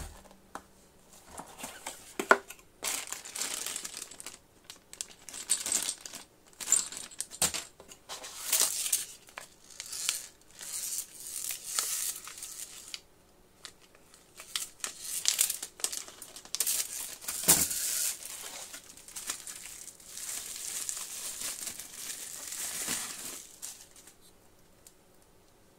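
Packaging being handled: a cardboard box opened and a plastic anti-static bag and bubble wrap crinkling and rustling in the hands in irregular bursts, with a sharp click at the very start and a knock about 17 seconds in. It goes quiet near the end.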